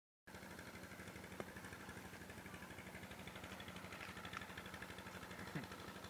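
A small engine idling steadily, with an even, rapid chug. A brief falling squeak comes near the end.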